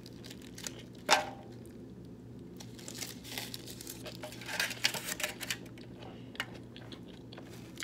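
Food packaging rustling and crinkling as it is handled, with a sharp click about a second in and a cluster of crackles in the middle.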